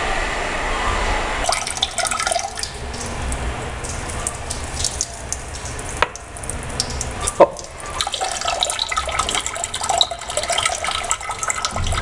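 Water squirted from a plastic water bottle, splashing onto a tile floor and into toilet-bowl water, like a urine stream. A couple of sharp clicks stand out, the loudest about seven seconds in.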